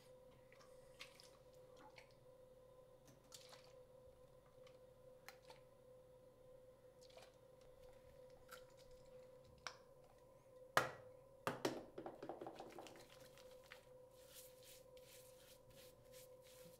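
Shaving foam being handled and rubbed onto a stubbled face by hand: scattered small clicks, a sharp click and a short wet sputter about eleven seconds in, then quick squishing strokes of lather near the end. A faint steady hum underlies it.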